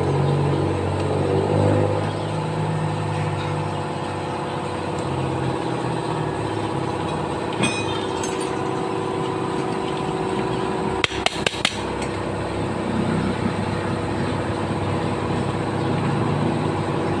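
Sharp metal taps on a motorcycle engine's crankcase: a single click about a third of the way in, then four quick strikes about two-thirds through, over a steady mechanical drone.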